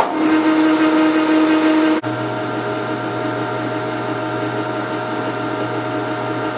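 Metal lathe running, spinning a rifle barrel in its four-jaw chuck: a steady motor and gear hum with several steady tones. About two seconds in the tone changes abruptly, a higher tone dropping out and a lower one taking over.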